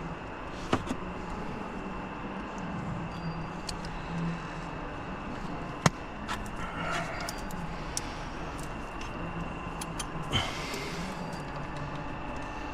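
Hand tools, a socket wrench with extensions, clinking and knocking on metal in a car's engine bay, with a sharp click about six seconds in and a short scrape near ten seconds, over a steady low hum.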